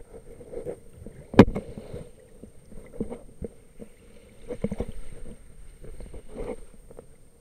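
Water sloshing and irregular knocks on an underwater camera and its housing as it is moved through the water, with one sharp knock about a second and a half in.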